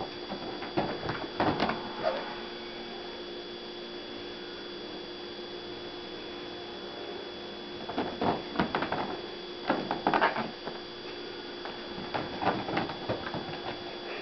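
A cat's paws thumping and scrabbling on fabric couch cushions in several short flurries as it pounces, over a steady electrical hum.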